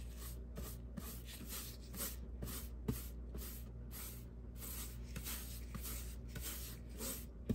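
Paintbrush bristles swishing across a wall in quick back-and-forth strokes, about three a second, spreading paint. A light knock about three seconds in.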